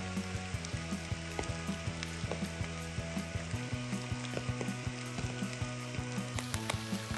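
Heavy rain hissing steadily, with many sharp drop clicks, under background music holding low sustained notes that shift about halfway through and again near the end.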